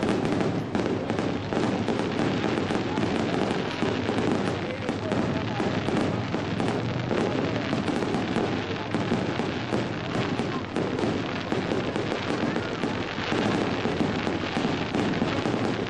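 Fireworks going off in a dense, continuous stream of crackles and pops, with no pause.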